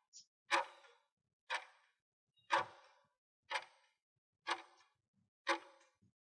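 Clock-tick countdown timer sound effect ticking once a second, six ticks in all, counting down the time to answer a quiz question.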